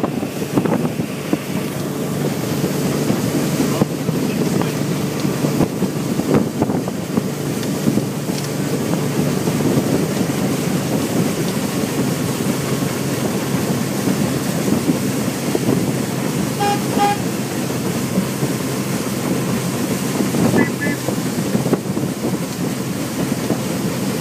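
Motorboat running at speed: steady engine drone mixed with water rushing past the hull and wind buffeting the microphone. A couple of short faint beeps sound about two-thirds of the way through.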